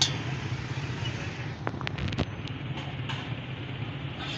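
Steady rumble of road traffic, with a few light clicks like a knife tapping on plates or a bowl about two seconds in.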